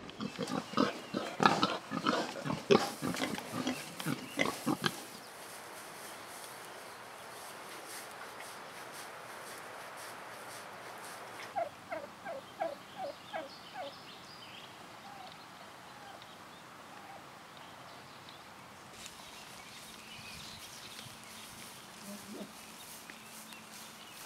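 A rapid run of loud knocks and clicks for the first five seconds, then steady outdoor background. About twelve seconds in, a white domestic turkey with her poults gives a run of about six short calls.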